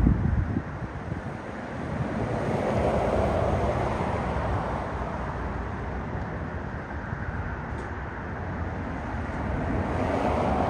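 Outdoor background rumble of passing vehicles, swelling and fading twice, with wind buffeting the microphone.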